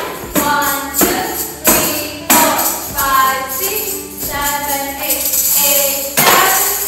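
Tambourines struck sharply in time with a praise song, their jingles ringing after each hit, about four strikes in the first two and a half seconds and another near the end. Between the strikes a singing voice carries the song.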